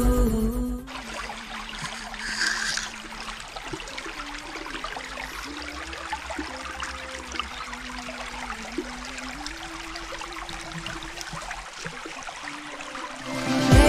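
Shallow creek water trickling over rocks, a steady, even rush. Background music cuts off about a second in.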